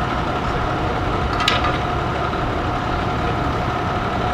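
Steady low rumble of idling vehicle engines, with a constant two-note hum over it and one short sharp click about a second and a half in.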